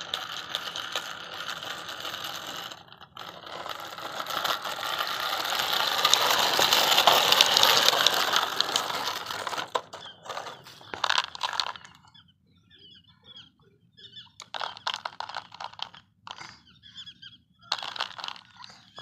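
Plastic toy tractor and trailer pushed over concrete strewn with feed pellets: a dense rattling crackle of many fine clicks from the wheels, loudest about six to eight seconds in, then breaking into short scattered rattles.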